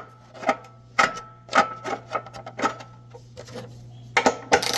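Sharp, irregular metallic clicks, about two a second, each with a brief ring: a 3/8-inch-drive ratchet and socket turning a 3/4-inch NPT tap in a water heater's anode port to re-cut cross-threaded threads. A steady low hum runs underneath.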